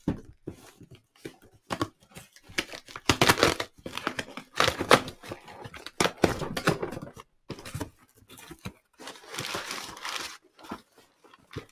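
Cardboard shipping box being opened by hand: packing tape peeled and torn off in a series of rips, with the cardboard flaps and paper inside rustling and crinkling. The loudest rips come about three to seven seconds in, and a longer rustle follows near the end.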